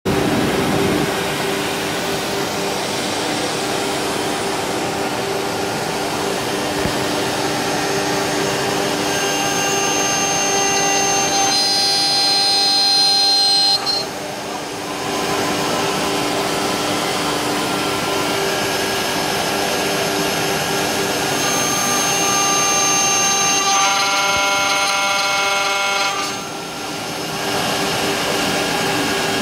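CNC wood lathe with built-in dust extraction running: a steady motor hum under the whoosh of the extraction fan. A higher whine comes in twice, about ten and twenty-two seconds in, each ending in a short drop in level.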